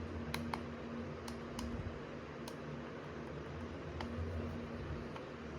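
Silent-switch buttons of an Amkette Hush Pro Astra wireless mouse clicking, about six muted clicks, mostly in pairs in the first half, over a steady low hum.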